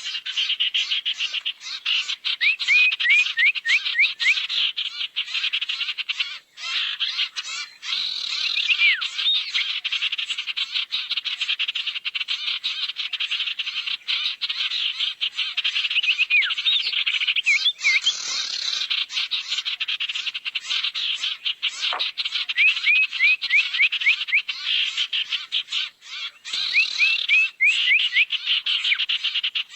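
Owl (burung sirtu) lure call: continuous, rapid, harsh chattering calls, broken every few seconds by quick runs of short falling whistled notes.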